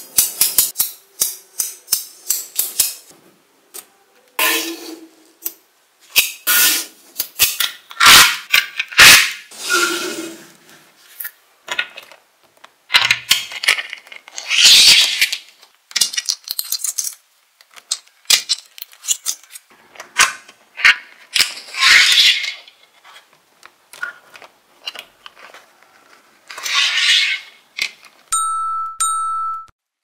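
Small neodymium magnetic balls clicking sharply as they snap together, and clattering and rattling in bursts as blocks of them are slid and pushed apart with a thin plastic card, with short quiet gaps between. Near the end a short steady tone sounds for about a second and a half.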